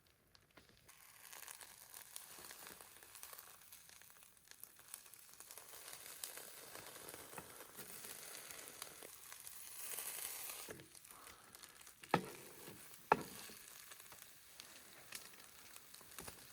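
Food sizzling in a frying pan, a steady hiss that starts about a second in, with two sharp knocks near the end, like a utensil striking the pan.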